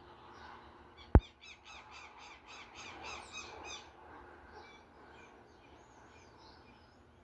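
A sharp thump about a second in, then a bird calling in a rapid run of about five high chirps a second for nearly three seconds, followed by scattered chirps.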